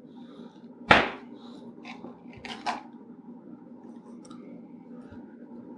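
Chef's knife cutting through a frozen block of fat-bomb mix on a wooden cutting board. A sharp knock about a second in as the blade hits the board, then a few lighter knocks and a second clear one a little under three seconds in.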